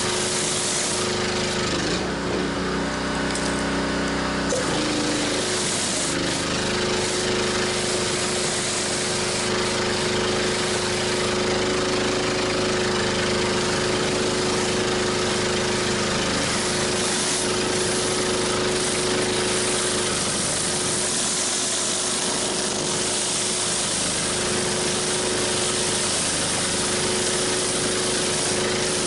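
High-pressure water hissing from a 14-inch spinning surface cleaner as it is pushed over concrete, over the steady hum of the pressure washer. The spray cuts out for about two seconds near the start, leaving only the machine's hum, then resumes.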